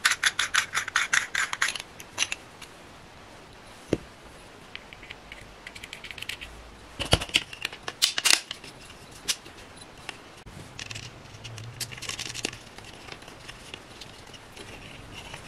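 Plastic lampholder being screwed and fitted by hand into a plastic cable channel: a quick run of small clicks as the threads turn over the first two seconds, then scattered clicks, scrapes and taps of plastic on plastic.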